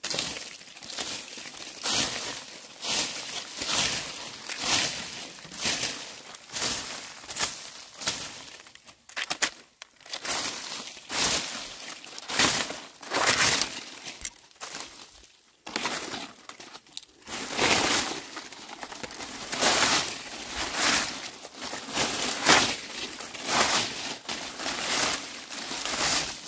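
Dry leaves being swept: repeated rustling, crackling strokes of crisp leaves, about one a second, with short pauses about a third of the way in and just past halfway.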